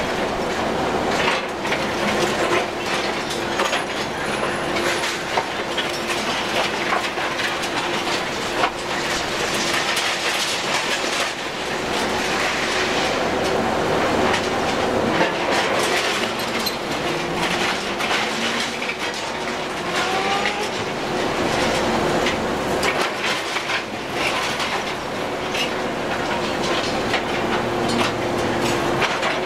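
Demolition machinery on a high-rise rooftop: continuous metallic clattering and rattling over a steady machine hum, with a couple of brief squeals about two-thirds of the way through.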